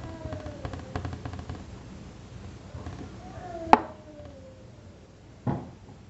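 A spatula scraping and clicking against an aluminium baking tray as cassava pieces are turned. There is one sharp knock on the tray just before the middle and a duller thump near the end.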